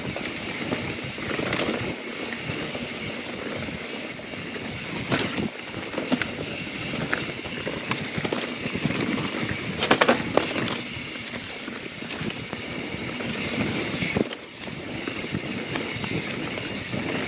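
YT Jeffsy 27 mountain bike descending a dirt trail: a steady rush of tyre and wind noise, with the chain and frame clattering over bumps. The clatter is loudest about 5 and 10 seconds in.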